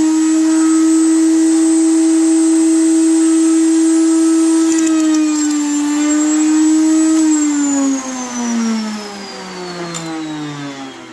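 Table-mounted wood router spinning a 2-inch bit, running loud with a steady high whine whose pitch sags briefly about five seconds in as it takes load. About seven seconds in it is switched off and winds down, the whine falling steadily in pitch and fading.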